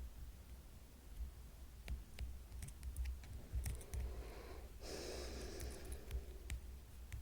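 A person breathing out audibly once, starting suddenly about five seconds in and lasting about a second, with a few faint sharp clicks before it.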